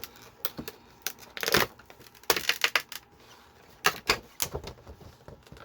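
A plastic blister pack of toy cars being opened by hand: a string of sharp clicks and taps with several short bursts of crinkling and tearing plastic and card.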